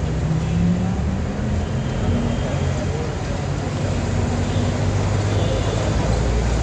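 Road traffic with car engines running, a steady low rumble with a hum, and faint voices in the background.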